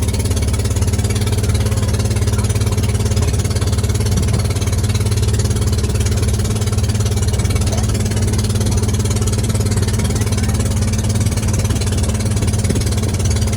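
Motorboat engine running steadily at a constant speed, loud and unbroken.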